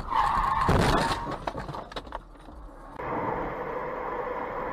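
Car collision heard from inside the dash-cam car: a sudden loud crash with a heavy low bang just under a second in, followed by a few sharp knocks. About three seconds in, this gives way to the steady road and engine noise of a car driving.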